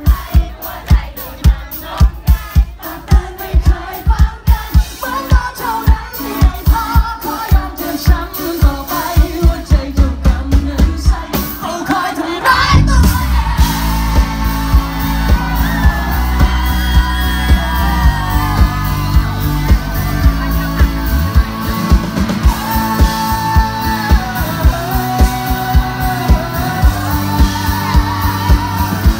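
Live rock band playing through a loud PA: a male singer over a steady drum beat. About halfway through, the full band comes in louder and thicker.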